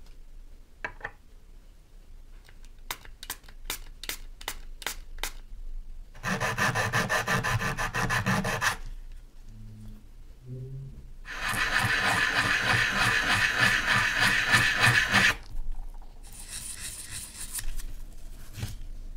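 A small brass lamp fitting rubbed back and forth on sandpaper by hand, in two loud bouts of fast scraping strokes and a lighter, fainter one near the end. A run of light ticks comes before the sanding.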